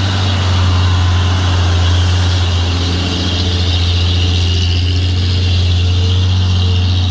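Old Bedford truck's engine running steadily at close range, a continuous low hum with a steady hiss over it.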